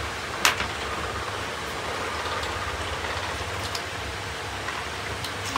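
Steady hiss of noodles simmering in a wok on a portable gas stove, with a sharp clink about half a second in and a fainter one near the end.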